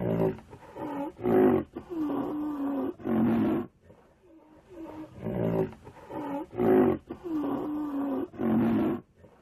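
Rhinoceros calls: a run of short, deep bellowing grunts with one longer held call, then the same run again about four and a half seconds later as a repeating sound loop.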